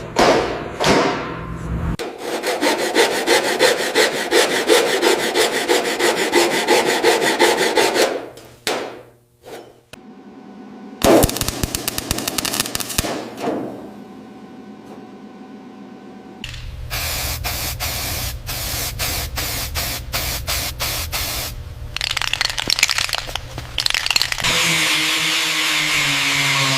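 A string of short, cut-together workshop tool sounds, mostly rubbing and scraping. Fast repeated strokes change abruptly several times, and a steadier machine-like noise comes in near the end.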